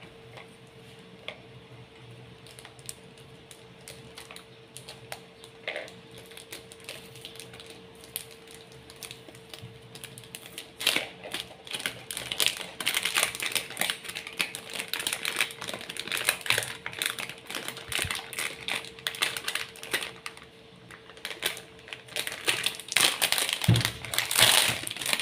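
Cardboard box and clear plastic packaging of a speedcube being handled and opened: light tapping and rubbing at first, then from about eleven seconds in dense, irregular crinkling and crackling of the plastic wrap as the cube is pulled out.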